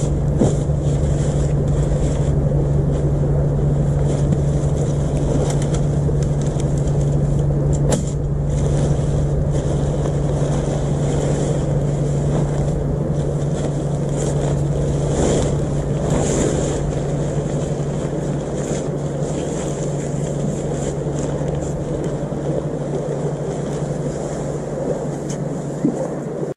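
Steady low engine drone, with the rustle and crinkle of nylon tent fabric being pulled out of its stuff sack and spread on the ground.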